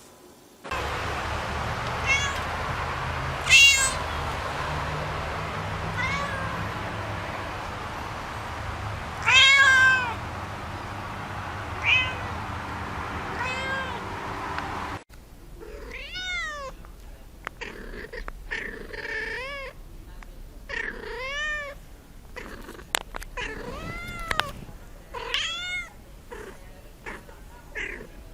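Kittens meowing. First a few separate meows over a steady background hum; then, about halfway through, the hum stops and a run of high meows follows, roughly one a second.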